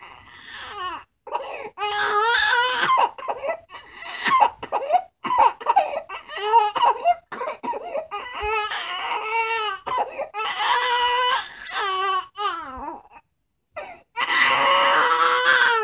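Baby crying in a string of high-pitched wails, each broken by short catches for breath, with a pause of about a second shortly before the end.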